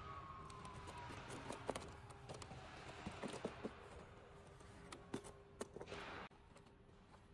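Light clicks and taps of corrugated cardboard being handled as cut box-blank pieces are lifted and pressed free of the sheet, after a faint machine whine falls away in the first second. A short rustle near the end cuts off suddenly.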